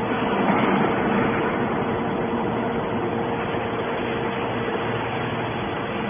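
Hydraulic scrap-metal baler running, a steady mechanical noise with a constant hum from its hydraulic power unit, swelling slightly about a second in.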